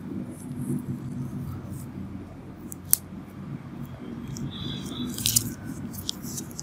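Metal extraction instruments clicking as they are handled, sharp and short: one loud click about three seconds in and two close together a little past five seconds. A low steady hum runs underneath.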